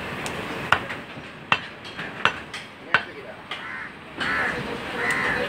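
A heavy meat cleaver chopping beef on a wooden tree-stump block: five sharp chops, about one every 0.7 s, then a pause.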